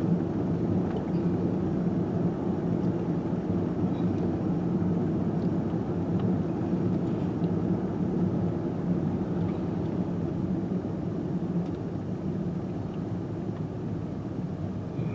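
Steady engine and road noise of a car driving, heard from inside the cabin, easing off slightly near the end.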